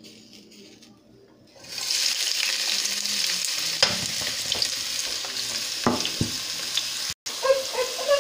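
Chopped onions tipped into hot oil in a pot start sizzling about two seconds in, a loud, steady frying hiss, with a few sharp knocks as they are pushed around and stirred with a spatula.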